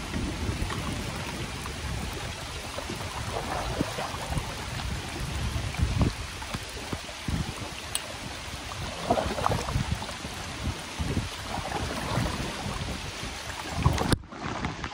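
Wind rumbling on the microphone over water sloshing around a kayak, with a few louder splashes. The sound breaks off abruptly near the end.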